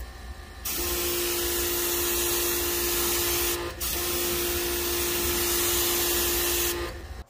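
Pressure washer spraying water onto a car's body: a loud hiss with a steady whine under it. It starts about a second in, breaks off briefly near the middle, resumes, and stops near the end.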